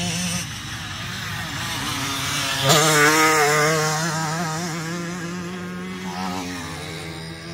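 Motocross motorcycle engine passing close at speed. It is loudest about three seconds in, with its pitch wavering as the throttle changes, then fades as the bike moves off. Other bikes' engines drone steadily farther off.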